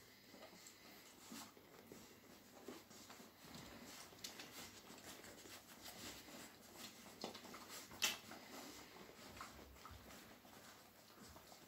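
Faint scattered small clicks and smacks of a litter of newborn flat-coated retriever puppies suckling, with one sharper click about eight seconds in.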